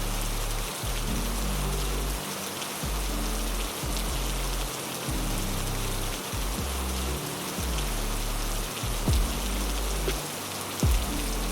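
Steady heavy rain hiss over background music of low held bass notes that change every second or two, with a couple of short low thumps near the end.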